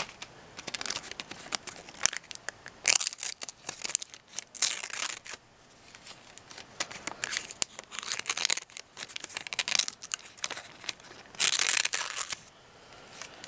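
Thin cigarette paper rustling and crinkling in irregular short bursts as it is handled and slid against a freshly sharpened knife edge to test its sharpness. The longest, loudest burst comes about twelve seconds in.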